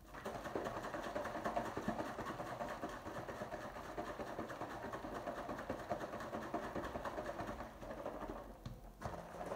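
Plastic shaker bottle of water and protein powder shaken hard, a fast continuous rattle and slosh that stops shortly before the end: the powder being mixed into the water so it doesn't form lumps.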